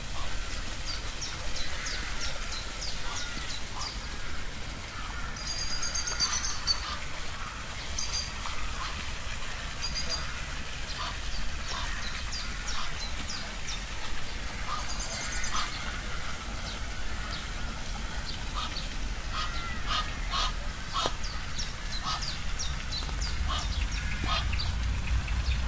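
A flock of birds calling, many short calls overlapping one another, over a steady low rumble.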